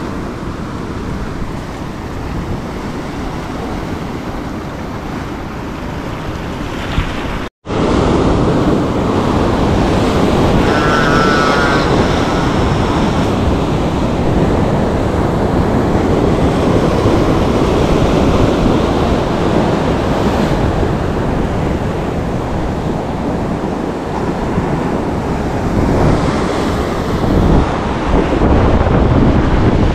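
Sea surf washing against rocks, with wind buffeting the microphone: a steady rushing noise. It cuts out for an instant about seven and a half seconds in and comes back louder.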